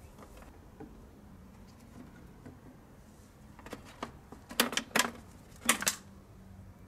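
Plastic bottles half full of diesel being unhooked from injector return hoses and set down: a few light clicks, then several sharp plastic knocks and crackles between about four and six seconds in, over a faint steady low hum.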